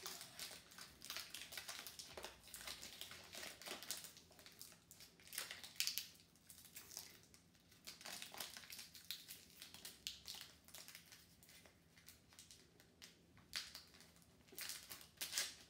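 Foil wrapper of a Pokémon trading-card booster pack crinkling and crackling irregularly as it is worked and torn open by hand.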